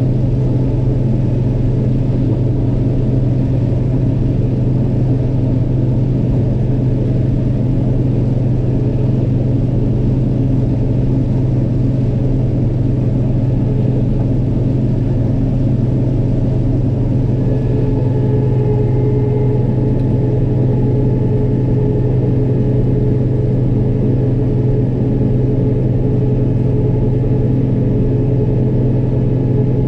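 Heavy diesel farm machinery running steadily, a loud low drone. About two-thirds of the way in, a few higher whining tones join it.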